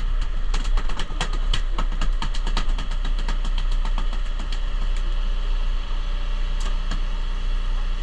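Boat engine running steadily with a low hum. Over it, a quick run of sharp clicks and knocks comes in the first half, with a couple more near the end.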